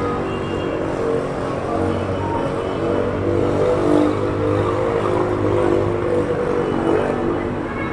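A motor vehicle running steadily, with a constant engine hum under road noise.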